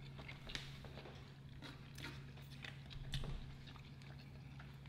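Quiet eating sounds: chewing and biting, with scattered small clicks and ticks of forks on the platters, over a low steady hum.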